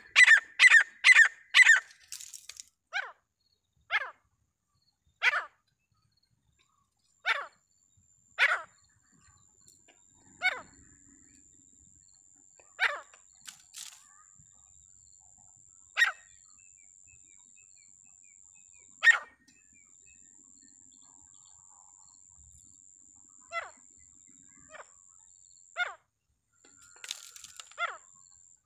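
Teetar (francolin) calling: a quick run of short calls in the first two seconds, then single short calls spaced one to three seconds apart. A faint steady high whine runs beneath from about eight seconds in.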